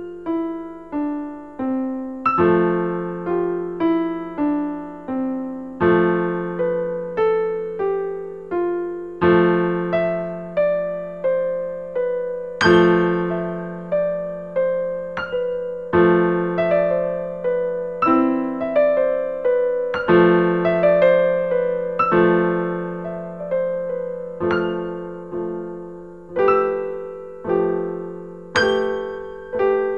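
Background piano music: a slow melody of single notes over a low note struck again every few seconds.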